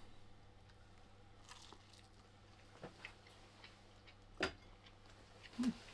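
Quiet room with a few faint scattered clicks and small handling taps, and one louder tap a little past four seconds in as a plate is set down on a wooden workbench. A brief low pitched sound comes near the end.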